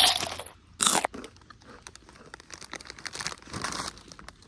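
Cheetos being bitten and crunched close to the microphone: a loud crunch right at the start and another about a second in, then quieter chewing crackles.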